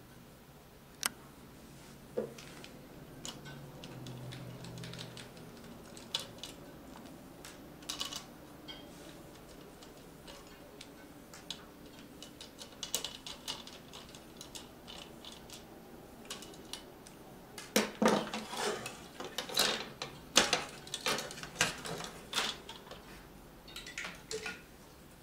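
Scattered small clicks and taps of a screwdriver and screws against a plastic graphics-card fan shroud as a fan is unscrewed from it, with a flurry of louder plastic clatter about three-quarters of the way through.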